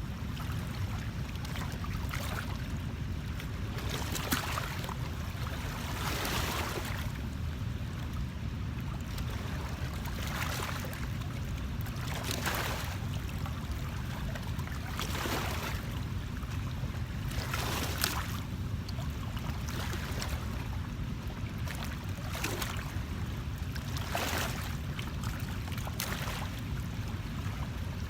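Small waves lapping and splashing against the shore or a boat, a soft swish every second or two, over a steady low rumble.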